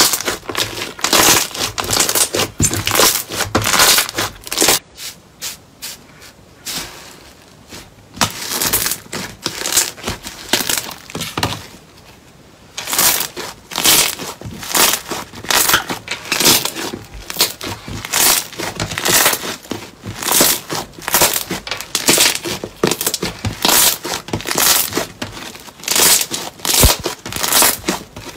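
Slime being kneaded, squeezed and stretched by hand: repeated crackling and squishing pops as it is pressed, first from a clear slime and then from a rainbow fluffy slime. There is a quieter pause about five seconds in and a short lull around twelve seconds.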